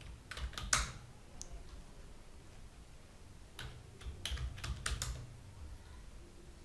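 Computer keyboard keystrokes: a few quick key presses near the start, then a short run of several more about four seconds in.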